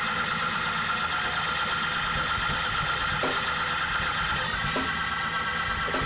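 Organ holding sustained chords, changing chord about four and a half seconds in.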